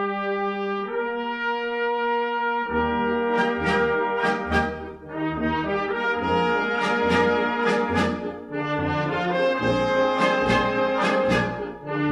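Brass-led band music: held brass chords, then about three seconds in the full band comes in, with drum and cymbal strikes.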